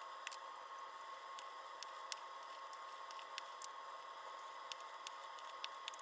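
Shaving brush working soap lather in a bowl: faint squishes and scattered soft clicks, irregular, a few a second, over a steady hum.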